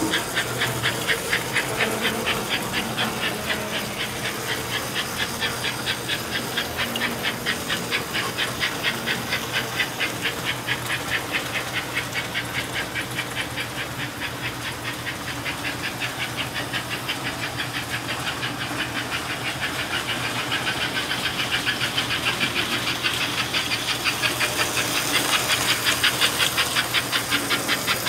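American Flyer S-gauge Northern steam locomotive running on its track, its smoke-and-chuff unit giving a fast, steady rhythm of hissing chuffs over the electric motor's hum. It grows louder near the end as the engine comes closer.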